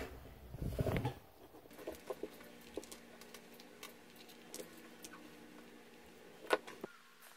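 Faint, scattered small clicks and taps of repair tools handling an iPhone as it is opened, with one sharper click about six and a half seconds in.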